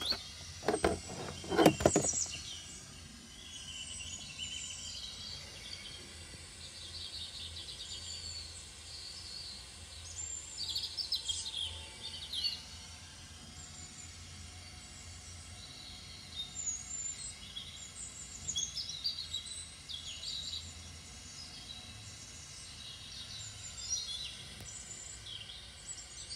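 Birds chirping and singing in short scattered phrases over a low steady background hum, with a few loud knocks in the first two seconds.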